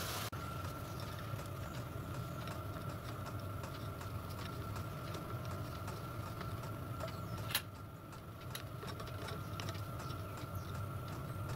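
Small scattered clicks and taps of a screwdriver turning brass gib adjusting screws into a small lathe's cross slide, with one sharper click about two-thirds of the way through. A steady low hum and a faint whine sit underneath.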